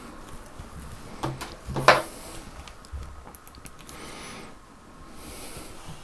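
Light handling noise of a screwdriver and motherboard screws being picked up: a few short knocks and scattered small clicks, the clearest knock just before 2 seconds in.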